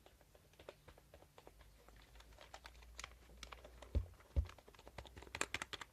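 Keys of a new wired USB computer keyboard being pressed in quick, irregular typing, the clicks coming thicker toward the end. Two louder low thuds land about four seconds in.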